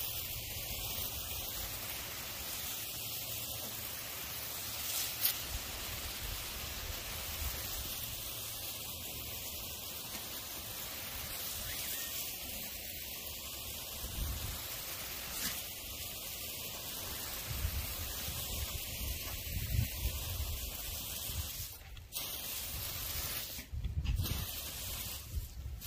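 Lawn sprinkler spraying water in a steady hiss.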